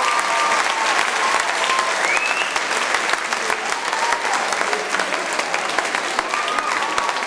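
Audience applauding steadily, many hands clapping at once, with scattered voices calling out over the clapping.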